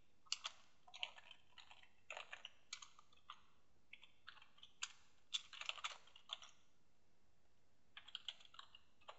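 Faint typing on a computer keyboard: quick runs of keystroke clicks, with a break of about a second and a half shortly after the middle before the typing resumes.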